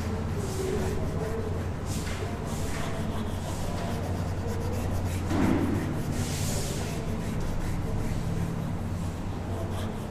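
Chalk rubbing on a chalkboard in short repeated strokes as a drawing is shaded in, over a steady low hum. One louder noise comes about halfway through.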